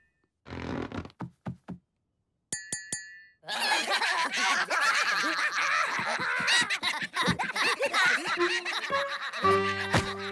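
Cartoon soundtrack: a few soft scuffs and a quick run of bright clinks, then several seconds of cartoon characters chattering and laughing, ending on a held tone.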